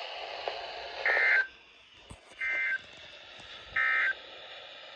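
Three short, identical bursts of Emergency Alert System SAME data tones, a harsh warbling buzz about a second apart: the end-of-message code that closes the warning broadcast. A radio hiss underneath drops away with the first burst.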